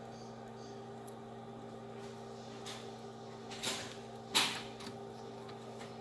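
Plastic laptop case parts being handled and fitted together: a few short scraping clicks, the loudest about four and a half seconds in, over a steady electrical hum.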